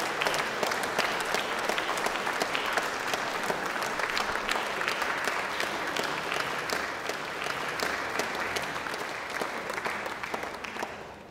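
Audience applause, many hands clapping steadily, dying away near the end.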